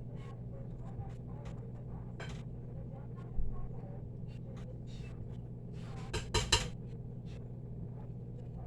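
Kitchen utensil and dish clatter: a knock about three and a half seconds in and a quick run of sharp metal clinks a little past six seconds. Scattered faint pops and a steady low hum lie underneath.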